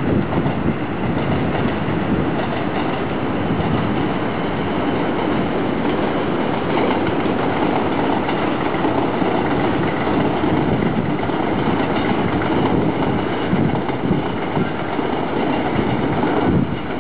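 Electric multiple-unit commuter train running along an elevated railway viaduct: a steady noise of wheels on rail, with some clatter.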